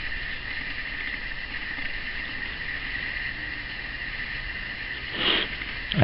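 Pencil scratching on sketchbook paper as lines are drawn: a steady, soft scraping, with a brief louder sound about five seconds in.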